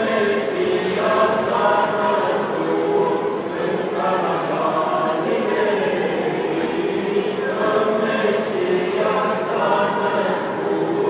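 A Romanian carol group of men and women singing a colind together in held notes.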